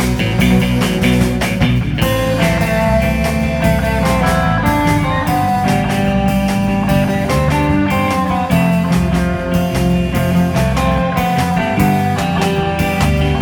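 Live rock band playing an instrumental passage: an electric guitar plays a lead line over bass and drums.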